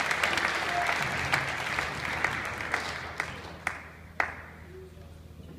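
Audience applauding, the applause dying away over about four seconds and ending in a few scattered single claps.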